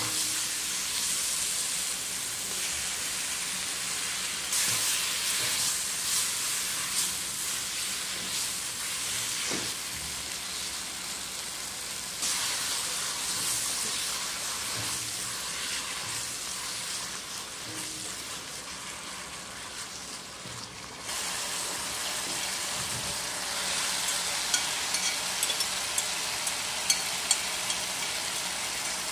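Noodles stir-frying in a wok: a steady sizzling hiss, with the level jumping abruptly a few times. Near the end come a run of sharp clicks of the spatula against the wok.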